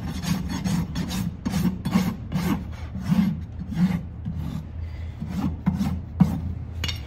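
Farrier's rasp filing a horse's hoof wall in rough back-and-forth strokes, about two to three a second, dressing the hoof after trimming. A sharp knock sounds about six seconds in.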